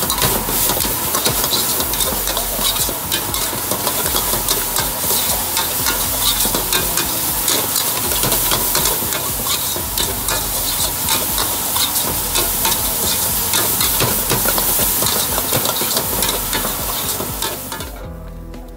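Metal spatula scraping and clacking against a steel wok as meat is stir-fried over high heat, over steady loud sizzling. The sizzle cuts off suddenly near the end as the wok comes off the heat to be emptied.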